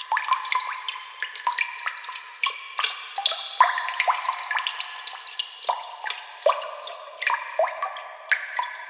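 Water dripping sound effect: many drops plinking into water at an irregular pace, each a short plink rising in pitch.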